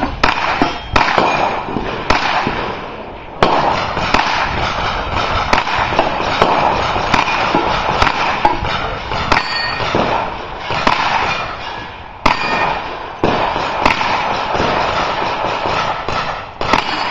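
Slow, irregular string of 9mm carbine shots, a second or so apart, fired at a steel Texas Star target, with steel ringing between the shots.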